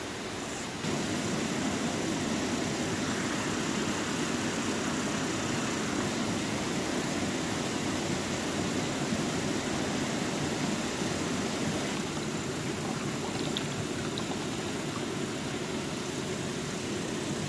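Steady rushing background noise, with no distinct strokes or tones, stepping up in level about a second in.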